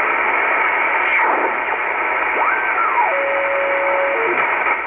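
Shortwave static from an Icom IC-R8500 communications receiver in upper sideband as its dial is tuned across the band. Whistling tones glide up and down in pitch as carriers sweep past, one holding a steady note for about a second past the middle before stepping down.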